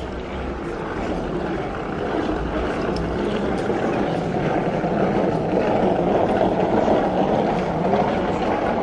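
Wheeled carry-on suitcase rolling across a hard tiled floor: a steady rumble that grows a little louder, over the murmur of a busy hall.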